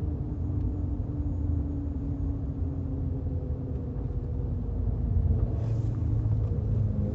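Chevrolet Camaro on the move: a steady low rumble of road and drivetrain noise with a faint steady hum, and a little faint scratchy noise about five and a half seconds in.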